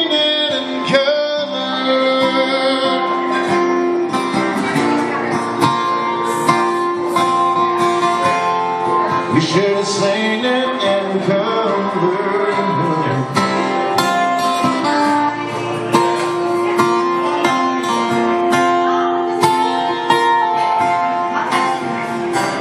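Live band music led by a hollow-body electric guitar, played steadily through the passage.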